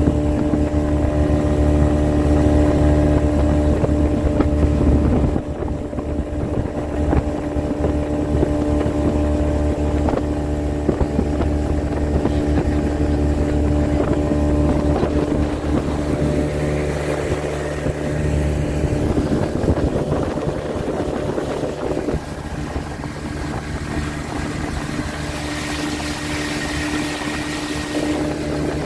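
Speedboat engine running steadily at cruising speed, with the rush of the hull through the water. Its level dips slightly about five seconds in.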